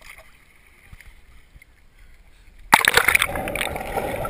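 A person plunging into the sea from a height: a sudden loud splash about two and a half seconds in, followed by a dense rush of churning water and bubbles around the submerged camera.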